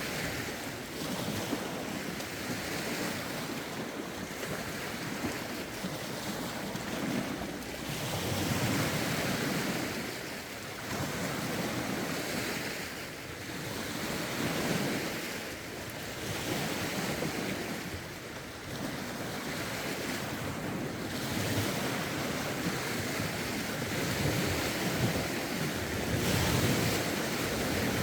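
Lake waves washing against the shore, swelling and falling every two to three seconds, with wind gusting against the phone's microphone.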